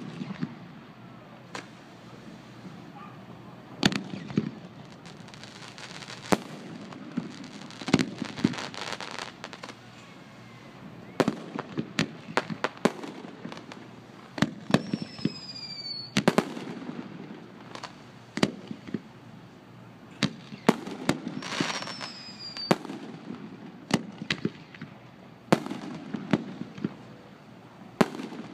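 Aerial fireworks display: shells bursting with sharp bangs every second or two, some followed by crackling. Twice a short whistle falls in pitch.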